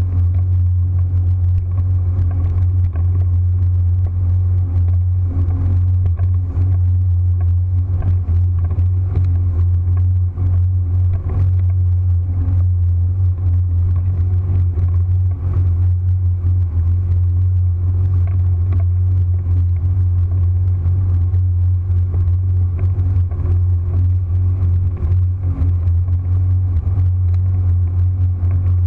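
Powerboat engine running flat out at a steady speed: a loud, deep, even drone with a few fainter steady tones above it and scattered faint ticks.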